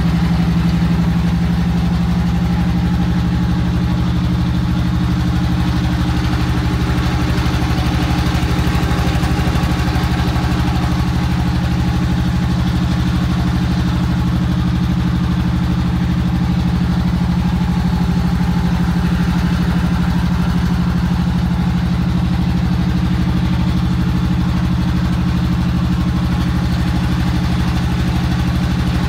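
An engine running steadily at an even speed, with a deep, unchanging hum.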